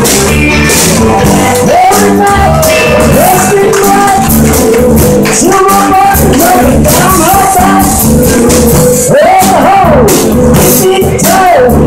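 Live blues-rock band playing, with electric guitars, bass and drums keeping a steady beat and a lead line bending up and down in pitch over it.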